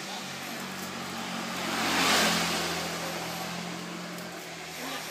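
A motor vehicle driving past, its engine hum and road noise swelling to a peak about two seconds in and then fading away.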